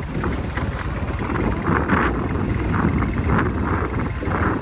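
Motorbike engine running during a ride, with wind buffeting the microphone in irregular gusts.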